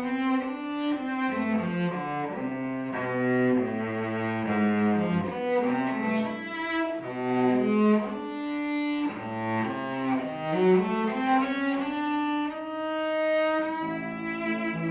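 A chamber string group plays, with cello and violin lines moving in quick notes. There are sliding glissandi near the start and again about nine seconds in, and a held note near the end.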